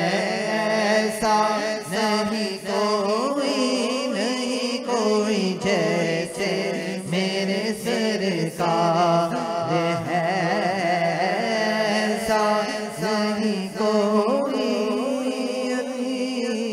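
A male naat reciter singing into a microphone in long, wavering, drawn-out lines, over a steady low drone.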